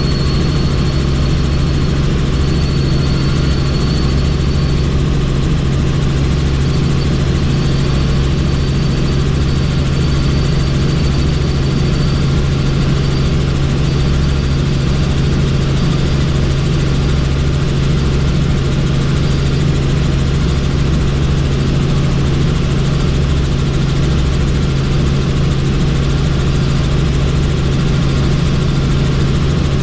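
Helicopter in flight: a steady, loud drone of rotor and engine with a strong low hum.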